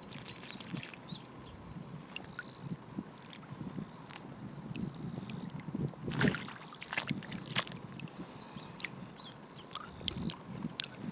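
Shallow puddle water sloshing and splashing as a hand net is swept through it, with scattered clicks and a larger splash about six seconds in. Short high chirps come and go over it.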